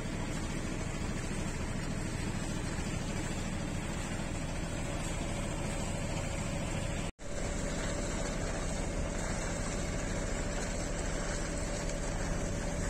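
A sailboat's inboard engine running steadily under way, a low steady drone with a steady higher tone above it. The sound cuts out for an instant about seven seconds in.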